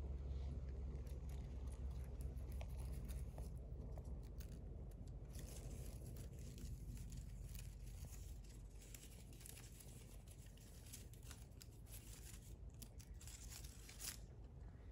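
Faint rustling and crackling as potted orchid plants and their leaves are handled. The crackles grow dense about a third of the way in and stop abruptly near the end.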